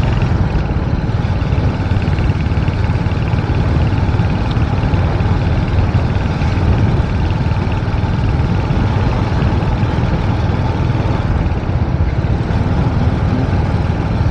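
Motorcycle engine running steadily while riding, a constant low drone with an even rush of wind and road noise over it.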